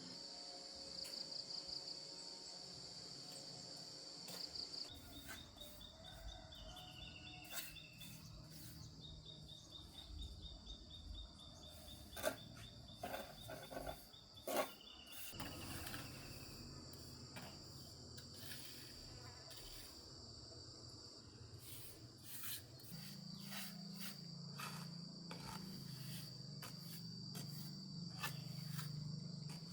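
Insects trilling steadily in a high pitch, with scattered clicks, two sharper knocks near the middle, and a low hum that comes in about three quarters of the way through.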